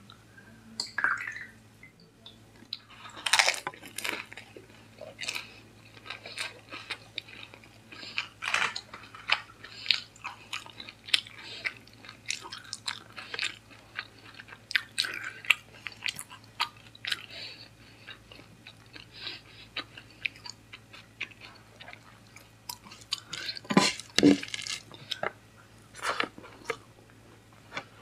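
Close-miked chewing and crunching of food eaten by hand, first a pani puri, then egg biryani, in irregular bursts of crunches and wet mouth sounds. The loudest crunches come a few seconds in and again about 24 seconds in.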